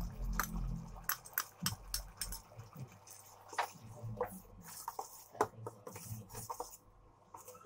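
Flat metal spatula stirring and scraping a sauce thickened with cornflour in a steel pan: repeated sharp clicks and scrapes of metal on metal, with wet squelching from the sauce.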